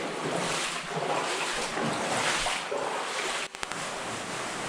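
Feet wading and sloshing through shallow water in a mine drainage tunnel, a swell of splashing with each stride, about one a second. A brief dip with a couple of clicks about three and a half seconds in.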